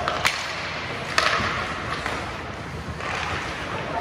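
Ice hockey play: two sharp cracks of puck contact, about a quarter second in and again just over a second in, over the steady hiss of skates scraping the ice.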